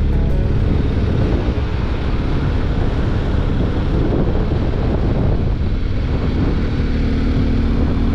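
Motorcycle under way: the engine runs steadily beneath a constant rush of wind on the microphone.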